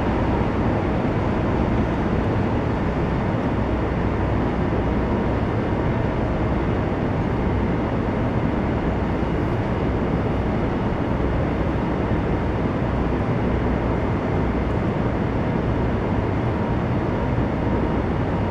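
Intercity passenger coaches rolling out of the station over the tracks: a steady rumble and hiss with a faint steady whine.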